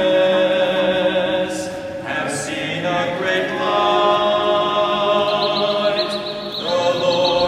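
Choir singing a slow hymn in a chant-like style, with long held notes.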